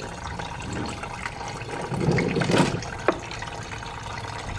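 Engine coolant (antifreeze) draining in a steady stream from a disconnected hose at the thermostat housing, the flow louder for a moment about two seconds in. A single sharp click about three seconds in.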